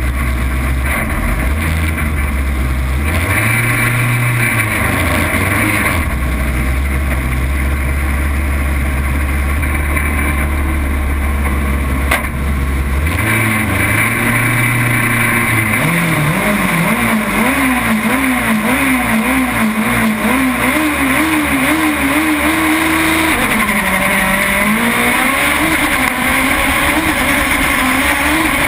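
Engine of a VW Beetle-class autocross car, heard from inside the cabin, idling on the start line and briefly blipped a few seconds in. About halfway through it revs hard as the car launches and accelerates across dirt, its pitch climbing and wavering up and down repeatedly.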